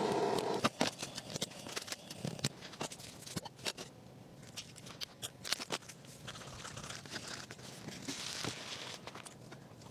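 Scattered small clicks, taps and crinkling from items being handled at a camp table, with a short louder noise at the very start.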